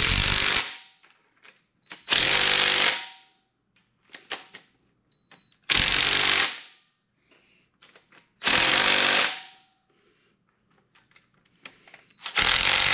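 A cordless DeWalt impact driver hammers in five short bursts of about a second each, a few seconds apart, running down cylinder head bolts on a 6.0-litre LS V8 (LQ4). Light clicks of the socket and bolts come between the bursts.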